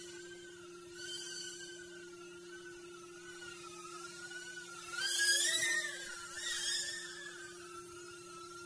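Electric motors and propellers of a small VTOL tailsitter flying-wing aircraft whining in flight. The pitch wavers up and down with throttle and grows louder and higher, with a rush of air, about five to seven seconds in. A steady low hum sits underneath.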